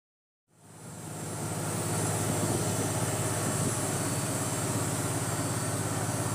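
Fishing boat's engine running steadily with a low, even hum and a hiss above it, fading in during the first second.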